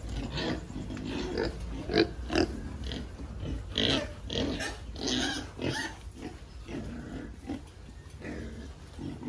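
A group of two-month-old pigs in a pen grunting and squealing, with many short calls overlapping. The loudest calls come about two and four seconds in.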